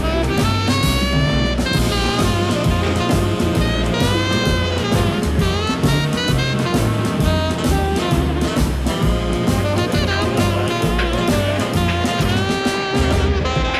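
Swing-jazz background music with saxophone and brass over a steady bass and drum beat.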